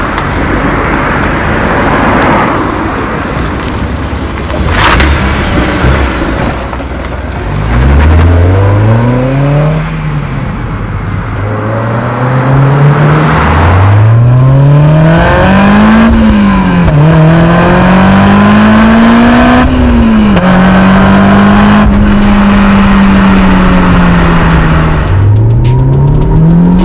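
Exhaust note of a 2006 Honda S2000 (AP2) 2.2-litre inline-four through an ASM I.S.Design silencer kit muffler, under way. After several seconds of hazy noise with no clear engine note, it revs up through the gears. The pitch climbs and drops sharply at each upshift, runs fairly steadily for a few seconds, then climbs again near the end.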